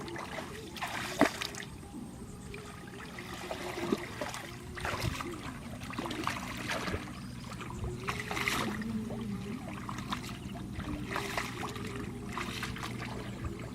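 Water trickling and splashing in irregular bursts every second or two, over a steady low hum.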